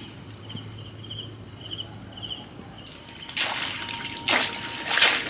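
Insects chirping in short, evenly spaced pulses, then, about three seconds in, three loud swishing rushes as a person pushes through dense leafy undergrowth.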